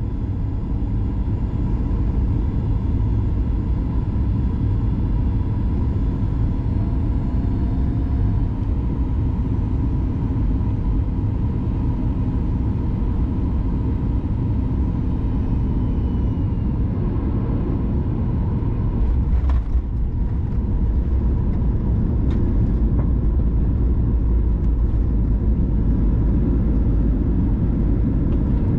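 Cabin noise of a Boeing 737 MAX 8 landing: its CFM LEAP-1B engines and the airflow make a steady low rumble. About two-thirds of the way through there is a brief thump, and the rumble grows louder after it as the jet rolls along the runway.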